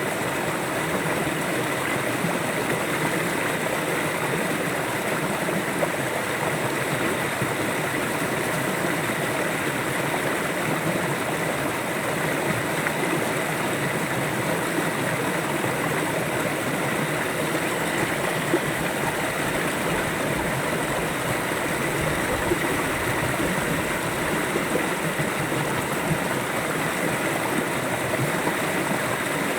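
River water flowing steadily, a constant even rush of running water.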